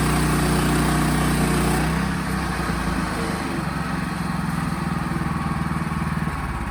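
Portable band sawmill's engine running steadily. About two seconds in, its note drops to a lower, more pulsing running sound.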